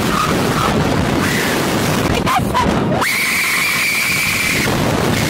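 Rushing air on the Slingshot reverse-bungee ride, with short high cries from the riders in the first half and a long, steady high tone held for over a second past the middle.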